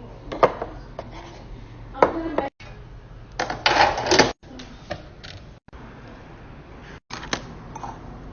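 Hard plastic containers, jars and packaging being handled as a fridge is restocked, giving short clicks, knocks and clatter. A denser rattling burst comes about three and a half seconds in.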